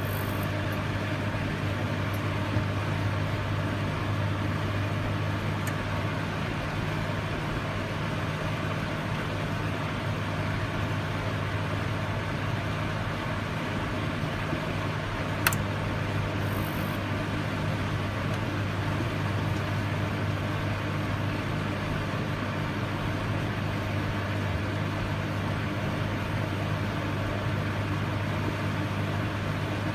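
Microwave oven running: a steady low electrical hum with fan noise, and one sharp click about halfway through.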